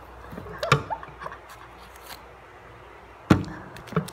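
A few sharp knocks and bumps on a tabletop, the loudest about three seconds in, as a baby monkey moves about on the table at close range.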